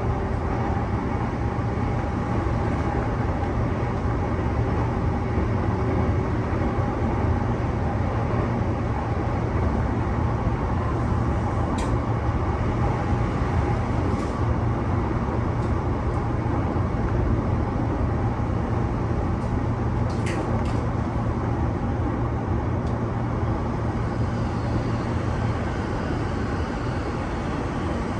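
Interior running noise of a JR East E233 series 2000-subseries electric commuter train travelling at steady speed: a continuous low rumble of wheels on rail, with a few short clicks about twelve and twenty seconds in.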